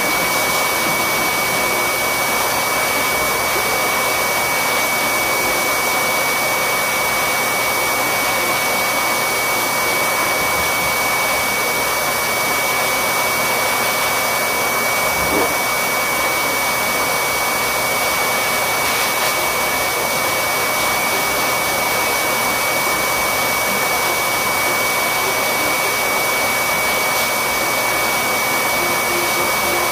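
Loud, steady whoosh of an electric air-moving machine, such as a grooming dryer or blower, with a thin steady high whine; a soft knock about halfway through.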